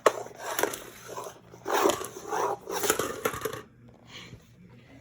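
A child's voice making growling animal noises for a toy tiger, a few breathy bursts in the middle that die away near the end.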